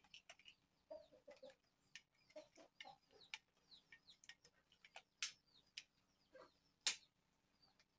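Scattered sharp clicks of a camera tripod being handled and adjusted, the loudest about five and seven seconds in, over faint, short, repeated animal calls.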